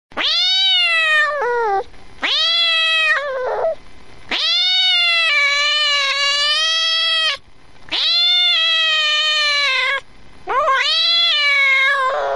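Domestic cat meowing: five long, drawn-out meows, each rising then falling in pitch. The middle one is the longest, about three seconds.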